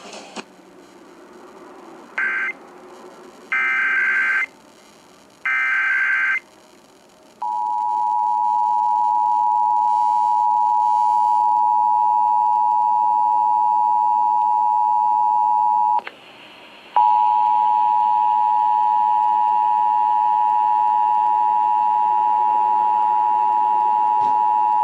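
Emergency Alert System test received over FM radio: three short bursts of shrill, warbling data tones (the SAME header), then the EAS two-tone attention signal, a steady, piercing dual tone. The attention tone breaks off about two-thirds of the way through and starts again a second later.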